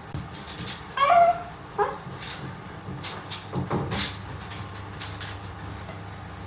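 Three-week-old miniature dachshund puppy whimpering: a loud high cry about a second in and a shorter one just after, followed by soft rustling and knocks.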